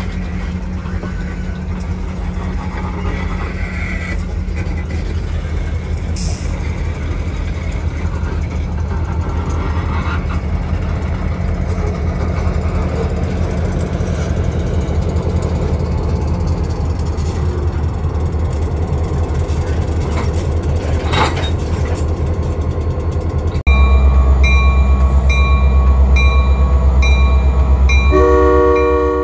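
Diesel locomotive running steadily during switching, with faint clicking of wheels and cars. About 24 s in it gets much louder as a bell begins ringing in a steady repeat, and near the end the locomotive's horn sounds.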